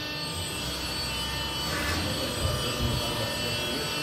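Hydraulic power unit of a TBE 160 Terra heavy tyre changer running with a steady whine. A brief hiss comes about two seconds in, and a couple of low thumps follow near three seconds, as the mounted tyre is moved.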